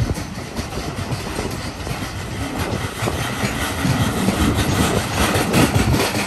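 Intermodal container freight wagons rolling past on steel wheels: a continuous rumble with rapid clicking over the rails, growing louder about three seconds in.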